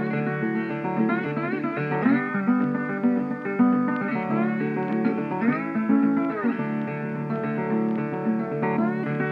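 Background music led by a plucked guitar, with a few notes that slide in pitch.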